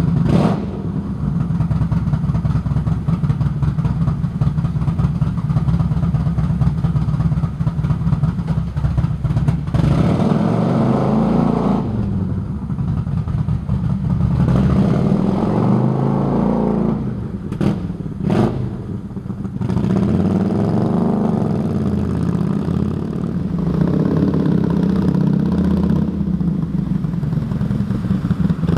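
Kawasaki VN800's V-twin engine running just after start-up: a steady, pulsing idle, then from about a third of the way in the throttle is blipped several times, the pitch rising and falling with each rev. Two sharp clicks sound about two-thirds of the way through.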